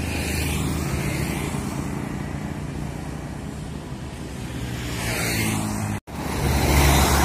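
Road traffic: motorcycles and other vehicles passing by, engines running and tyres rushing, swelling twice as they go past. The sound cuts out briefly about six seconds in and comes back with a louder, deeper engine.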